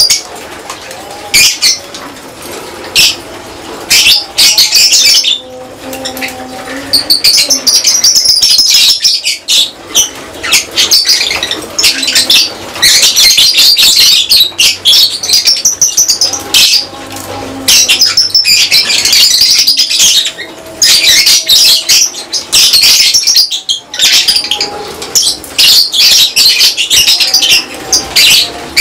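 A colony of lovebirds chattering: loud, shrill chirps, densely overlapping and almost without a break.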